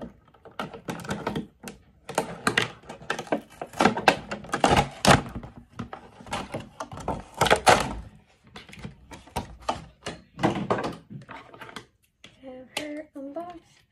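Scissors snipping and the clear plastic window and cardboard of a doll box crinkling and clattering as the box is cut open and handled, with knocks against the desk.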